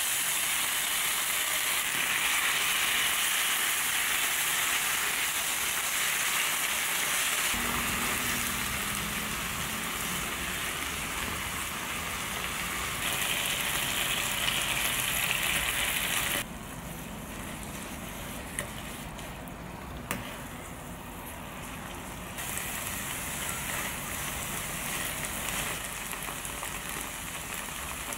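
Kimchi and diced meat sizzling in a hot frying pan as they are stirred with a spatula. The sizzle falls quieter for several seconds past the middle, then picks up again, with a few light clicks of the spatula against the pan.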